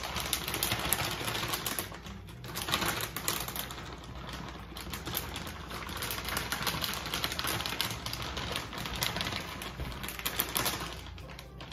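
Crinkly plastic bag of shredded cheese rustling as it is shaken and squeezed out over a foil pan of macaroni, in dense crackling runs with brief pauses.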